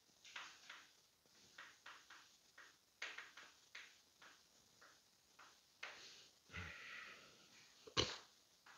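Faint short scratches and taps of a pen writing on a board, with one sharper knock about eight seconds in.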